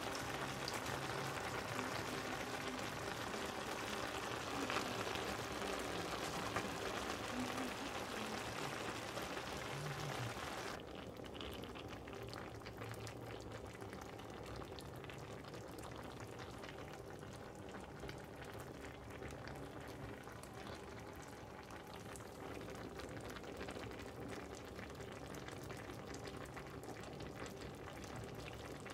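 Vegetables and mince sizzling in a frying pan. About eleven seconds in, the sound turns quieter and duller as a creamy vegetable stew bubbles at a simmer.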